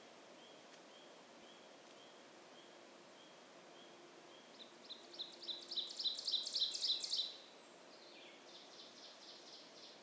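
Ovenbird singing: a rapid series of repeated high notes that grows steadily louder for nearly three seconds, starting about halfway in, then stops abruptly. A fainter second song follows near the end, over a faint, evenly repeated high note heard earlier.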